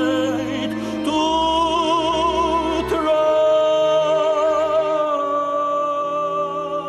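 Music: a voice singing long held notes with a wide vibrato in an operatic style, over a low sustained drone. The sung note changes about a second in and again about three seconds in.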